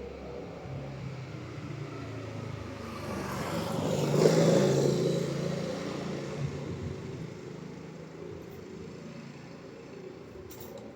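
A road vehicle passing by: engine and tyre noise swell to a peak about four seconds in, then fade away.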